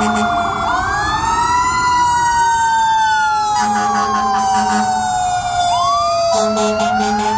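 Fire engine's mechanical Federal Q-type siren winding up and then coasting slowly down in pitch, twice. Air horn blasts sound over it about halfway through and again near the end.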